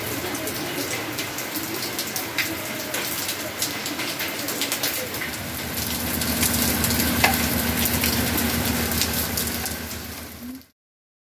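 Heavy rain and hail falling on a paved courtyard and metal gates: a dense steady hiss full of sharp ticks of hailstones striking. A low steady hum joins about halfway through, and the sound cuts off suddenly near the end.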